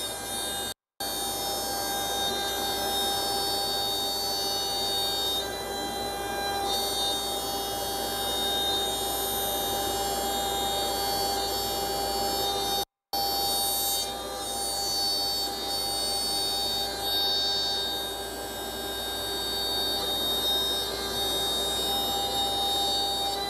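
CNC router spindle running and its bit cutting into a wooden sheet: a steady whine with several held tones over the rasping noise of the cut. The sound cuts out for an instant about a second in and again around thirteen seconds.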